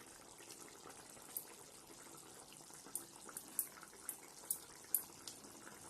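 Thick spinach gravy simmering in a kadai, with faint, sharp pops now and then, about seven, as bubbles burst through the surface.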